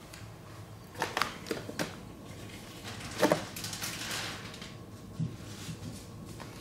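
Bare feet stepping onto a plastic digital bathroom scale, with handheld camera and clothing handling noise: scattered soft knocks and rustles, the loudest about three seconds in.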